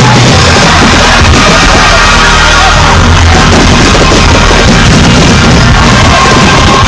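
Loud rock music, dense and steady, at the very top of the recording's range.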